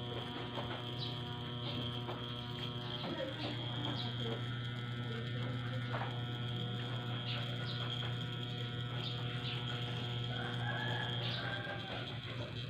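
Electric hair clippers buzzing steadily while cutting hair at the side of the head, then switched off near the end.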